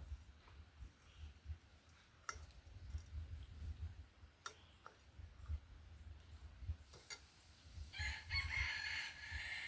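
A rooster crowing once near the end, one long call of about two seconds. A few sharp clicks come before it.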